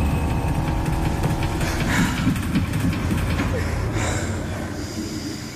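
Low, steady engine-like rumble that fades a little near the end.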